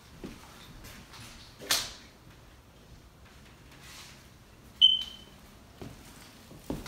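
A single short, high-pitched chirp about five seconds in, cutting in suddenly and fading quickly, with a brief hiss earlier and a few light knocks like footsteps near the end.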